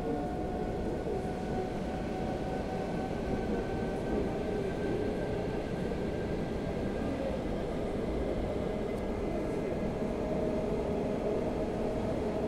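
Suburban electric train heard from inside the carriage as it runs along the line: a steady rumble of wheels on track with a humming whine from the traction motors, slowly getting a little louder.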